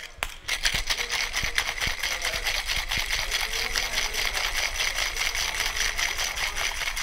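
Ice rattling hard inside a Boston shaker (mixing glass fitted into a metal tin) as a margarita is shaken, a fast, even clatter starting about half a second in.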